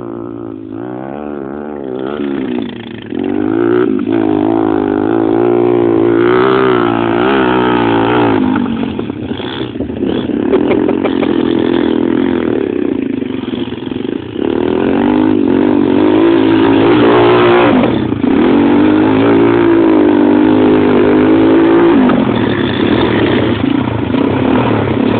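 Quad bike engines revving hard as the ATVs are ridden, the engine note rising and falling repeatedly with the throttle and dropping off briefly several times.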